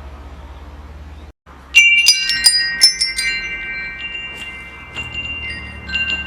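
Metal wind chimes ringing: a low steady rumble first, then a brief cut to silence, then a quick cluster of strikes about two seconds in whose clear tones ring on, with a few more strikes near the end.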